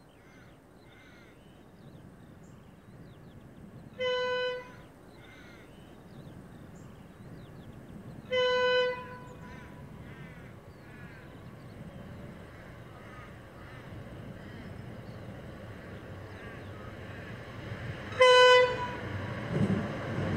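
Diesel locomotive horn sounding three short blasts, the first two about four seconds apart, then a longer gap before the third and loudest. Faint bird chirps sound between the blasts, and the rumble of the approaching freight train builds near the end.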